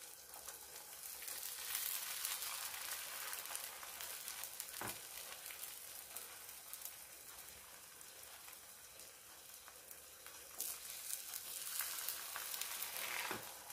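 Beaten eggs sizzling in hot coconut oil in a non-stick pan while a wooden spatula pushes them into large scrambled folds. The sizzle swells about two seconds in and again near the end, with a single light knock about five seconds in.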